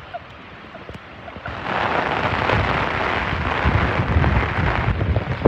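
Heavy rain pouring down, an even hiss that grows much louder about a second and a half in, with wind buffeting the microphone in low rumbles.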